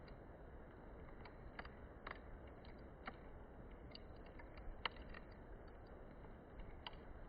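Wood fire crackling: irregular sharp pops and clicks from the burning wood over a soft steady hiss, with one louder pop about five seconds in.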